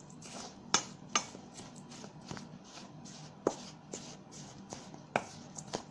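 A ladle stirring a crumbly rice-flour dough mixture in a bowl, with soft scraping and several sharp knocks of the ladle against the bowl. Hot oil has just been mixed into the flour.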